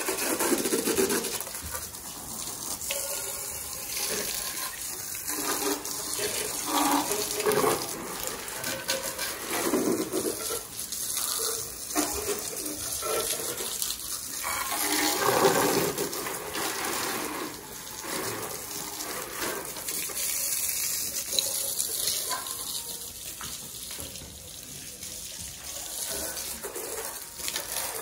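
Water jet from a garden hose spraying onto a motorcycle and a wet concrete floor: a continuous hissing splatter that swells and fades throughout.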